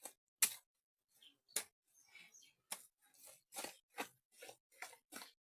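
Bare feet treading a wet mud mix for plastering a mud house: repeated squelching steps, about two a second and uneven, some louder than others.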